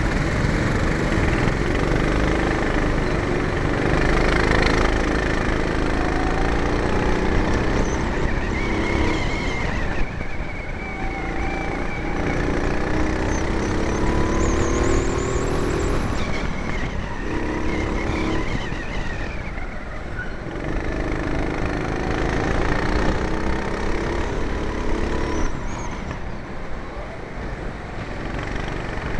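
Four-stroke indoor rental kart engines running, the nearest engine's note climbing and dropping again and again as the kart accelerates and slows around the track.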